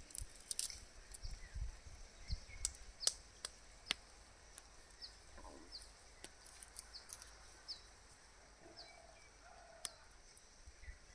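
Faint outdoor ambience of small birds chirping, a short high note repeated every half second or so, with scattered light clicks and a few soft low thumps near the start.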